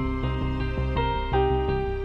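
Gentle background music: a slow instrumental melody of held notes changing every half second or so over sustained bass.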